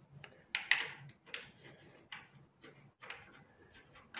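Hands working a steel barn-door hanger strap and its bolts against a wooden door: a series of quiet, short scrapes and clicks, about one every half second.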